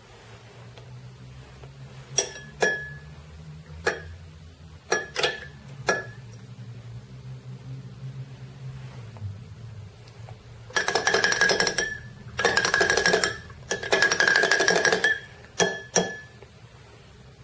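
Metal spoon clinking against a drinking glass, each strike leaving a short ringing glass tone. A few single taps come first, then three spells of fast rattling as the spoon is stirred quickly around the glass, then two more taps.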